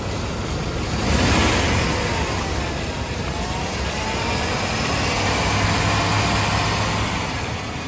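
1996 GMC Sierra Z71 pickup's engine running with the hood open: a steady hum with a faint whine that drifts up and down in pitch, getting louder about a second in.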